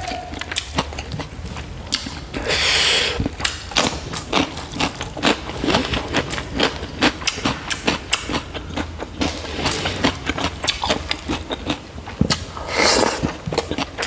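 Close-miked eating by hand: fingers mixing and scooping rice with pork curry on a steel plate, and wet chewing with lip smacks. It comes as a rapid run of small clicks, with two brief louder noisy bursts, about two and a half seconds in and near the end.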